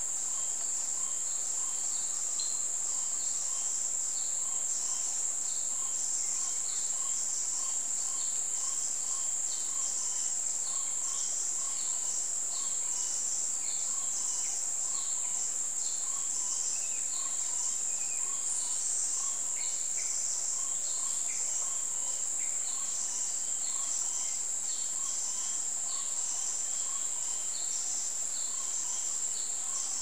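A steady, high-pitched insect drone, with a faint short note repeating about twice a second behind it.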